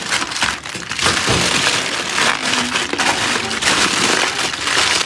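Aluminium foil crinkling and crackling as hands fold and scrunch it into a wrapped packet, in an irregular run of crackles.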